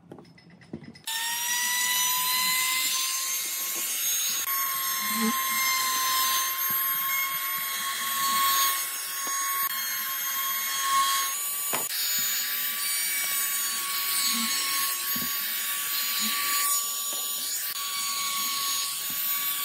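Compact electric trim router running at full speed, a steady high whine with a hiss as it routes a thin hardwood strip. It starts about a second in, its pitch climbing briefly as it spins up, and there is one sharp click near the middle.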